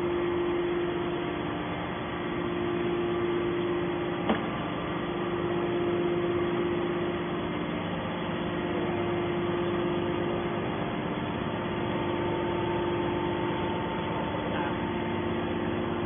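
Hydraulic scrap metal baler's electric motor and hydraulic pump running, a steady hum, with one sharp click about four seconds in.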